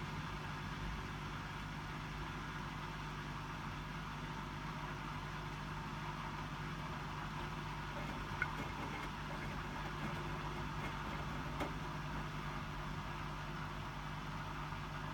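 Hotpoint WMFUG 942 washing machine running steadily through its distribute-drain stage before the spin: an even motor and drain-pump hum, with two faint clicks in the second half.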